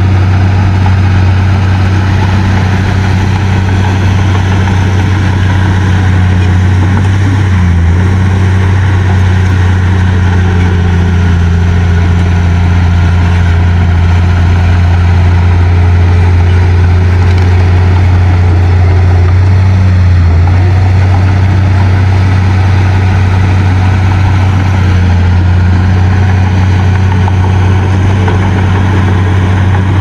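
The diesel engine of heavy earthmoving machinery running steadily at an even pitch, a strong low hum, with two brief wavers about eight and twenty seconds in.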